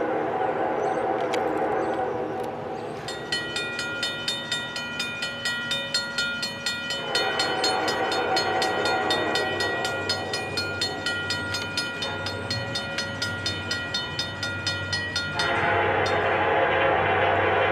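Diesel locomotive air horn sounding for a grade crossing, with a crossing warning bell ringing steadily about twice a second through the middle. The horn comes back loudest near the end as the locomotive approaches.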